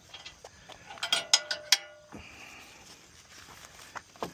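A quick series of sharp metallic clicks and clanks, with a short ringing tone, as gear is handled. A faint steady whine follows.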